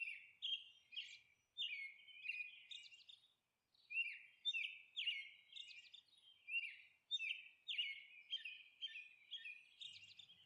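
Birds chirping quietly, a quick run of short falling chirps repeating a few times a second, with a brief pause partway through.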